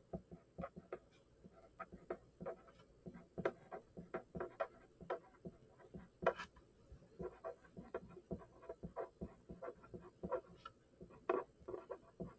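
Pen writing on paper: faint, irregular scratching strokes and small taps as words are written out by hand.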